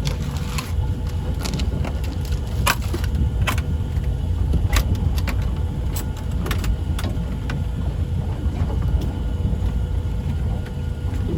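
Boat engine running with a steady low rumble, with scattered sharp knocks and taps over it.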